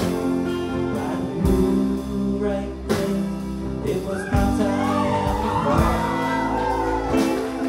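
Live bluegrass band playing: upright bass, guitar and fiddle over a steady beat, with a wavering melody line in the middle.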